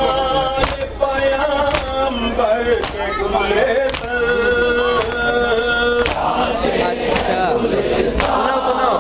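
A crowd of men chanting a noha, a Shia lament, in unison. Sharp slaps of matam, hands beating on chests, keep time at about one a second.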